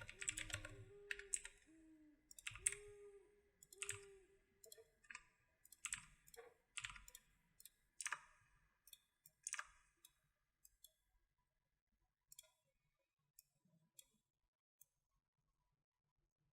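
Computer mouse and keyboard clicks: sharp single clicks about once a second over the first ten seconds, then fainter and sparser ones.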